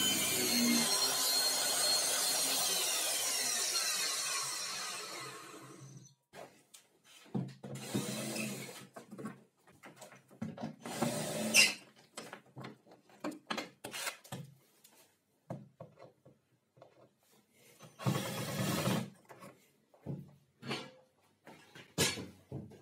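Parma electric circular saw coasting down after being switched off, its whine falling in pitch and fading away over about five seconds. After that come scattered knocks and rubs of wooden parts being handled.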